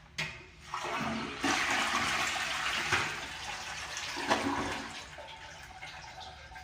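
Briggs Conserver/Savex round-bowl toilet flushing: a short click, then a loud rush of water that peaks and tapers off after a few seconds into a quieter refill.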